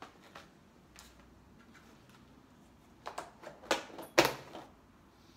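Clear plastic food tub being handled: a cluster of sharp plastic clicks and crackles about three seconds in, the loudest a little after four seconds.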